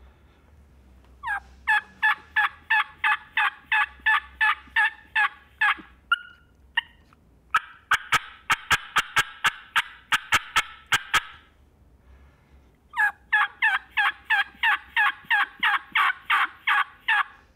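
Hen turkey yelping imitated on a mouth (diaphragm) turkey call: three long runs of quick yelps, about three to four a second, with a couple of short single notes between the first two runs. Sharp clucks and cuts are mixed in among the yelps.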